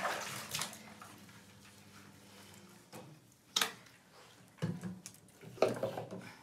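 A brief rush of bathwater noise that stops about half a second in, then a few sharp knocks and clicks against a bathtub in a small tiled bathroom while a puppy is washed; the loudest comes about three and a half seconds in.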